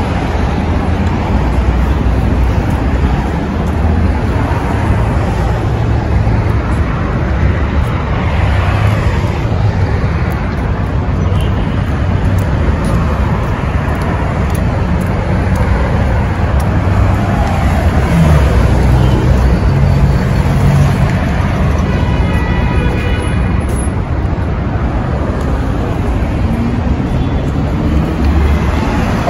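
Busy city street traffic: a steady mix of car and bus engines and tyre noise passing close by. About three quarters of the way through, a short steady high-pitched tone sounds briefly over it.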